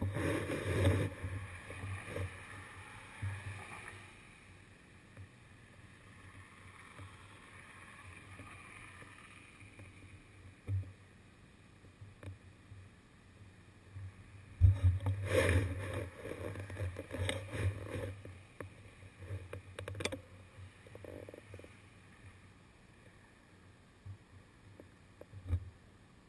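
Road traffic picked up by a camera on a stopped bicycle: mostly quiet, with two louder stretches of low rumbling noise, one at the start and one about fifteen seconds in, and a few short knocks.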